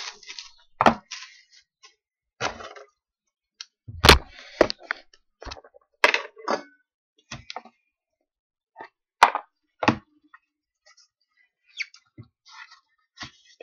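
Hands cutting open and handling a cardboard trading-card box. There is a brief crinkle of cutting at the start, then scattered sharp clicks and knocks as the box and its lid are handled and set down. The loudest is a thump about four seconds in.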